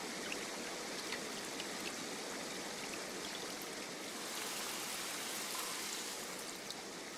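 Mountain stream running and trickling over stones, a steady rush of water with a few faint drips.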